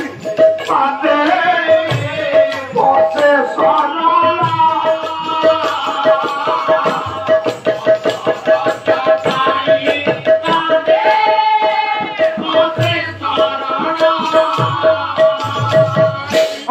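A man singing live on stage, accompanied by a hand-played barrel drum, over a quick steady beat.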